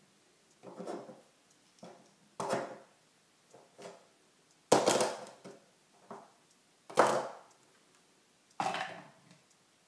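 A series of about seven irregularly spaced knocks, each dying away within about half a second, the loudest about five and seven seconds in.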